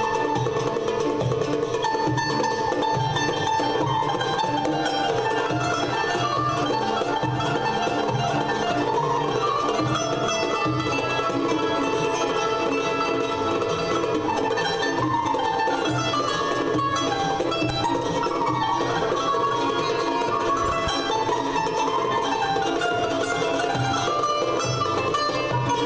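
Violin ensemble playing a fast Ottoman-Turkish longa, an instrumental dance piece, with a bright plucked-string sound alongside the violins. The melody runs up and down over a steady, driving rhythm without a break.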